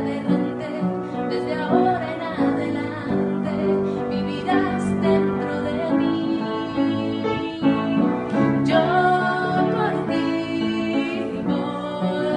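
A woman singing a slow melody, accompanied by piano.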